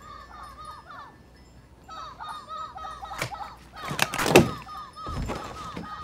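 Film soundtrack of tinkling, chime-like notes repeating in short figures, broken about four seconds in by a sudden loud thud with a rushing swell.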